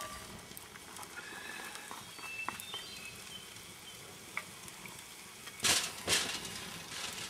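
Food sizzling after being tipped into a hot cast-iron skillet over a campfire, a steady hiss, with two louder scraping noises near the end.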